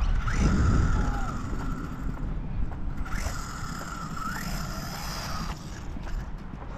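Small 1/16-scale electric RC car's motor and ESC whining as it is driven across concrete, with a higher whine from about halfway that cuts off suddenly near the end, over a steady low rumble.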